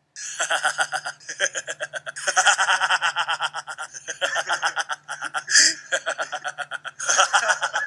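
A man laughing hard and long in runs of quick pulses, breaking off briefly several times to catch his breath.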